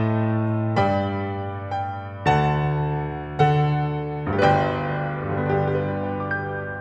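Piano playing slow, sustained chords, each struck and left to ring and fade; the strikes come about a second apart, then grow softer and sparser as the phrase dies away near the end.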